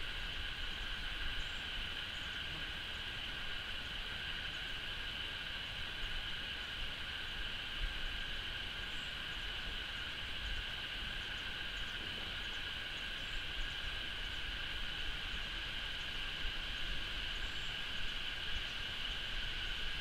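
A steady, unbroken drone of insects at two pitches, with low wind rumble on the microphone underneath.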